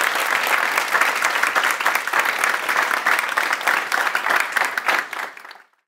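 Audience applauding, a dense steady clapping from a room full of people that fades out near the end.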